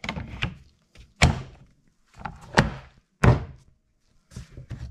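Hard plastic clunks and knocks as a power-tool battery and a black plastic pump housing are handled, fitted together and set down on a wooden workbench. There are several separate knocks, the loudest about a second in and again about three seconds in.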